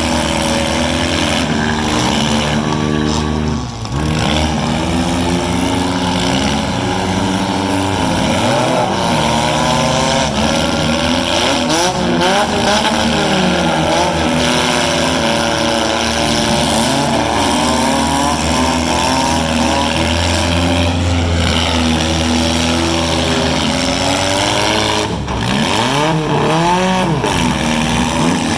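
Several four-cylinder demolition derby cars' engines revving at once, their overlapping pitches rising and falling as the cars accelerate and back off.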